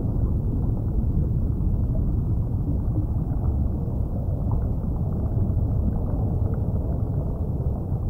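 Steady, muffled low rumbling noise with no distinct events, the even outdoor rumble of wind and water.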